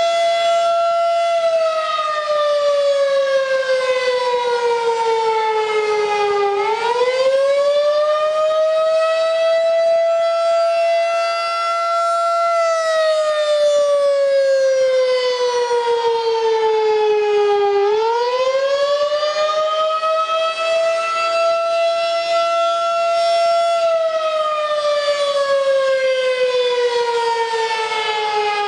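Federal Signal 2001-SRN outdoor warning siren sounding a wail. One loud tone holds, then slides slowly down in pitch over about five seconds as the rotor coasts, and climbs quickly back up when it is powered again, about every eleven seconds.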